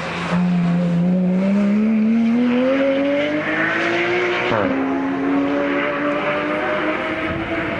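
Porsche 911 GT rally car's flat-six engine accelerating hard, its pitch climbing for about four seconds. Its revs then drop sharply at an upshift and it pulls on in the next gear.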